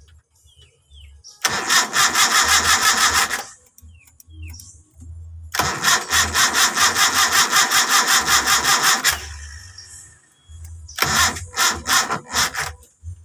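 Starter motor cranking a long-dormant carbureted engine in three attempts, each an even rhythmic chug. The third attempt is shorter and choppier. The engine does not catch and run; the jumped batteries are going flat fast.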